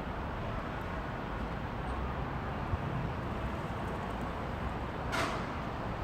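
Steady outdoor background noise, like distant traffic, with a short hiss about five seconds in.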